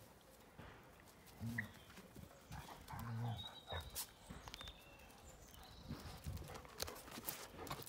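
Dogs play-growling: two short, low growls, then the soft scuffle of paws moving over grass and dirt.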